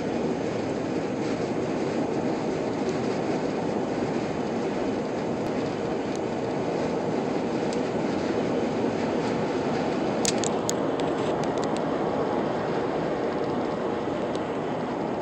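Steady tyre and wind noise inside a Lexus cabin cruising at highway speed, about 75 mph. A few light clicks come about ten seconds in.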